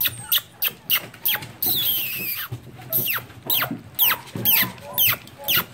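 English cream golden retriever puppies squeaking and whining in short high cries that fall in pitch, several times, over a steady patter of small clicks and taps about three a second.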